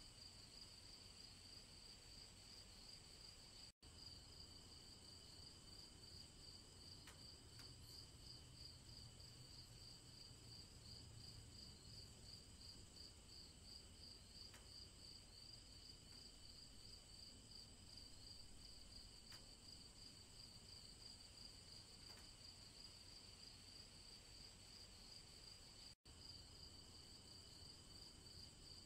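Crickets chirping in a faint, continuous, rapidly pulsing high trill. The sound cuts out for an instant twice: about four seconds in and near the end.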